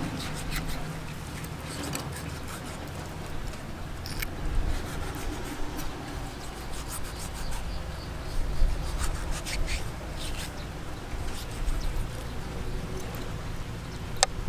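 A knife cutting raw shark fillet on a wooden chopping block, with scattered short taps and scrapes of the blade on the wood; the sharpest tap comes near the end. Insects buzz steadily underneath.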